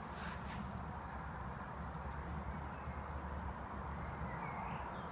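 Quiet outdoor background: a steady low rumble and faint hiss, with no clear sound event.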